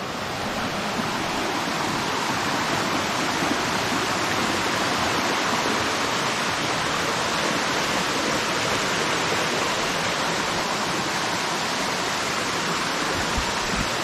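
Waterfall's falling water rushing steadily over rock, an even roar that swells slightly in the first second and then holds level.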